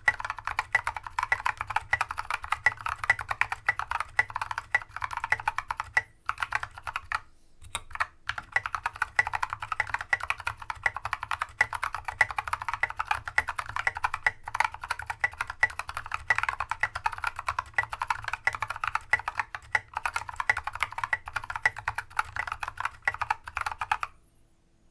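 Steady fast typing on a Mercury Rocketeer mechanical keyboard with tactile Holy Panda switches, SA keycaps, a brass plate and a foam-filled case; the switch stems are modded so they do not bottom out. The typing pauses briefly twice and stops just before the end.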